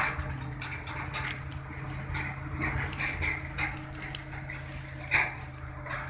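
A steady engine hum under repeated metallic clinks and rattles, with a louder clank right at the start and another about five seconds in.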